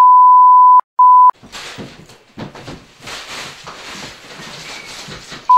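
A steady 1 kHz censor bleep that cuts off just under a second in, followed by a short second bleep. Then comes a few seconds of quieter, shuffling noise, and another short bleep at the very end.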